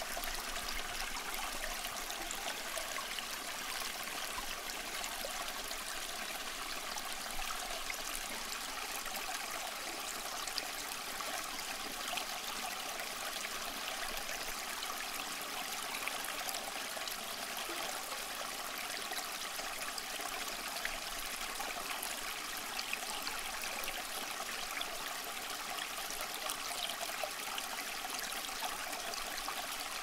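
Small tiered cement tabletop fountain running, water trickling steadily from pot to pot into the basin.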